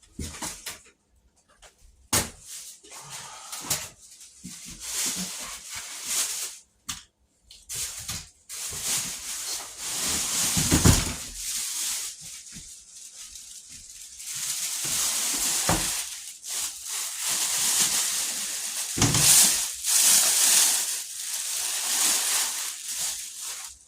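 Cardboard box and packing being handled and pulled apart: irregular rustling and scraping in stretches, with a few knocks.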